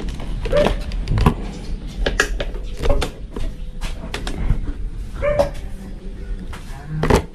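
Sharp plastic clicks and knocks as a scooter's instrument-panel cover is handled and unclipped, with a dog barking briefly four or five times.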